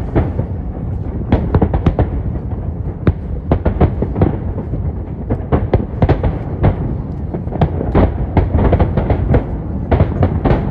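Dense fireworks barrage: many sharp bangs of aerial shells bursting in quick, irregular succession over a continuous low rumble.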